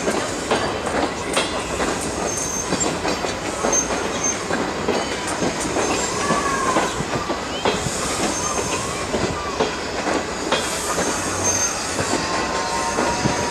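Wheels of a slow-moving train of new CSR railcars rolling over yard switches and rail joints: a run of irregular clacks and knocks, with brief high-pitched flange squeals at several points and a wavering squeal about halfway through and again near the end.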